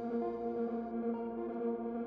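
Background music: sustained, echoing ambient notes with a soft guitar-like tone.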